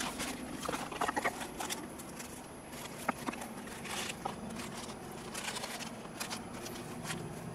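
Cardboard box and foam packaging being handled: flaps opened and a foam insert slid out, with scattered light knocks, clicks and rustles, over a low steady hum.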